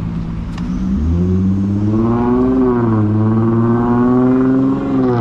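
A large road vehicle's engine pulling away close by, its note rising from about a second in, dipping briefly near the middle and climbing again over a steady low hum.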